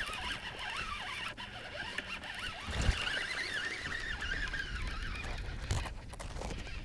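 A fishing reel whirs steadily, its whine wavering up and down in pitch, while a hooked bass is fought in. A single low thump comes a little before the middle.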